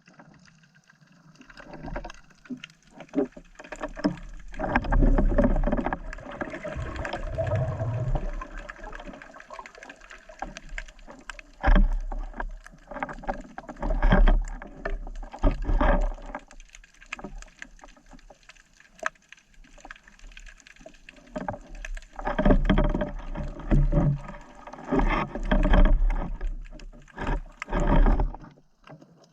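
Water sloshing and gurgling in irregular surges, with a deep rumble and scattered sharp knocks.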